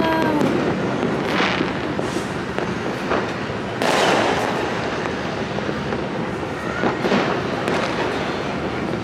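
Fireworks and firecrackers going off across the city: a continuous crackle and rumble of many distant explosions, with scattered sharp pops and one louder bang about four seconds in.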